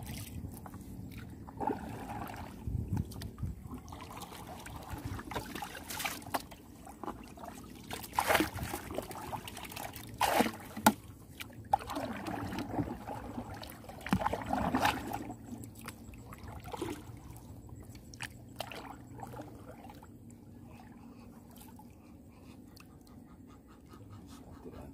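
Water splashing and trickling, with irregular splashes roughly every two seconds, then a quieter stretch for the last third.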